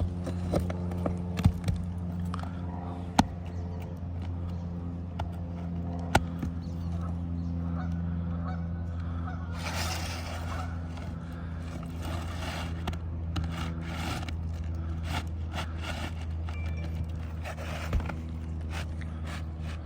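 A steady low mechanical hum with several evenly spaced tones, with scattered sharp taps and clicks. From about halfway on there are denser stretches of scraping and rustling, typical of loose shingle work.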